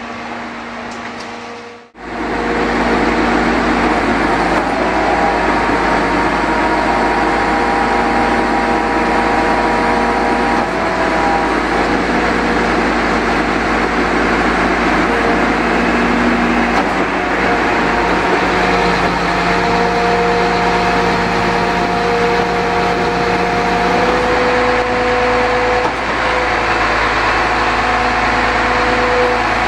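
Engine of a Mercedes-Benz Actros truck running steadily to drive its truck-mounted Putzmeister M46 concrete pump. It makes a loud, even drone with whining tones that shift in pitch every several seconds. The sound comes in after a brief break about two seconds in.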